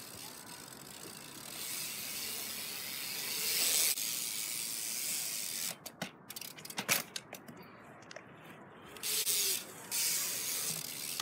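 BMX bike riding on a concrete pyramid: the tyres roll on the concrete with a hiss that swells over the first few seconds, with the ticking of the freewheel hub as it coasts. A few sharp knocks about six to seven seconds in, as the bike hits down during tricks.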